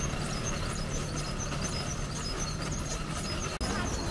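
Outdoor roadside background noise at night: a steady low rumble with faint, evenly repeated high chirps over it, and a brief dropout about three and a half seconds in.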